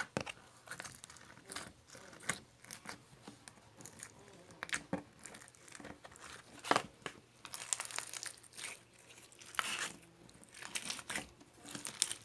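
Close-up crinkling and crackling with many irregular sharp clicks and taps, and a few longer crackly rustles about two-thirds of the way through.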